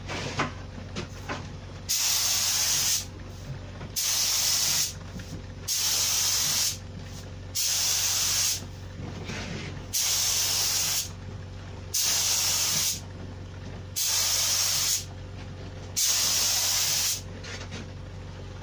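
Gravity-feed paint spray gun hissing in eight bursts of about a second each, one roughly every two seconds, each pull of the trigger a pass of paint over the panel.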